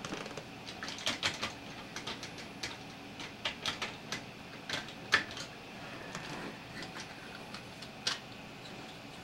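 Irregular small clicks and taps of small model-locomotive parts and hobby tools being handled on a workbench, with the sharpest click about five seconds in and another near the end.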